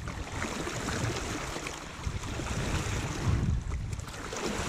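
Wind buffeting the microphone with a low rumble, over the hiss and splash of choppy sea water around a kayak.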